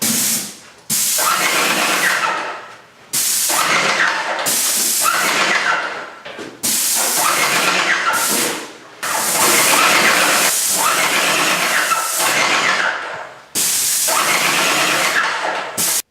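Electric paint sprayer spraying primer in about seven hissing bursts of roughly two seconds each, each starting abruptly as the trigger is pulled and tailing off at its release.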